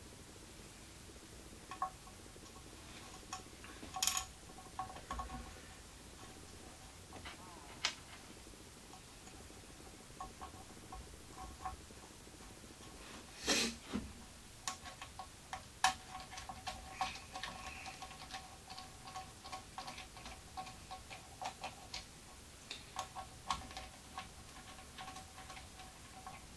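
Faint metallic clicks and clinks of a steel bearing block being screwed onto a steel CNC router frame with a hand tool, the frame ringing thinly after the sharper knocks. There is a louder knock about halfway through, and then a run of quick small clicks near the end.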